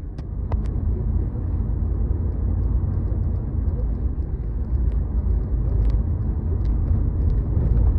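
A motor vehicle's engine running, a steady low rumble, with a few faint small clicks over it.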